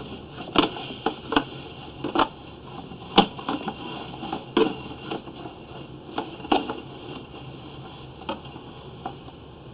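Drain inspection camera's push cable knocking and clicking irregularly, one or two a second, over a steady hiss; the knocks thin out near the end.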